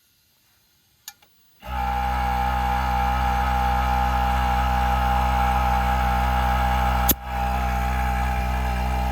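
Bauer 1.6-gallon cordless brushless air compressor switching on about a second and a half in and running steadily with a strong hum, refilling its tank; a sharp click and a momentary drop come about seven seconds in.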